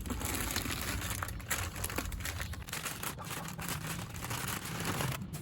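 Packaging crinkling and rustling in an irregular run of crackles as coilover parts are unwrapped from their box.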